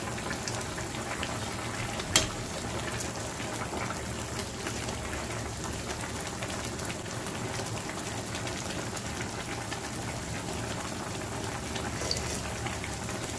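Pot of chicken soup boiling steadily with a continuous bubbling hiss, and a single sharp click about two seconds in.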